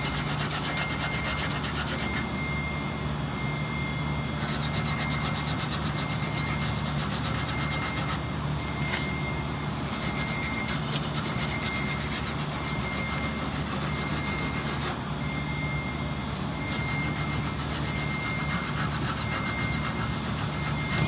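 Hand wire brush scrubbing the ends of 3/0 grounding cable in rapid scratchy strokes, with brief pauses a few times, roughening the conductor so the exothermic weld will stick.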